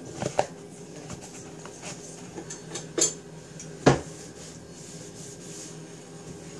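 Close handling noise: rubbing and scraping with a few sharp knocks, the loudest about four seconds in, as an arm reaches over a glass baking dish right beside the phone.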